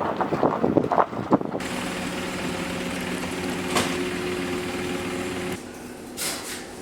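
A few knocks and rustles, then a steady mechanical hum with a low drone that cuts off abruptly near the end.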